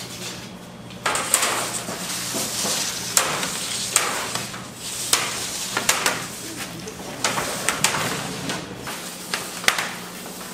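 Irregular sharp knocks and clatter, a dozen or so, with scraping and rustling between them, over a steady low machine hum.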